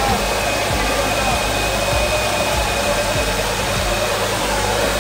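Tractor's diesel engine running flat out under full load in a tug-of-war pull, its rear tyres spinning and smoking on concrete, in one loud, steady noise.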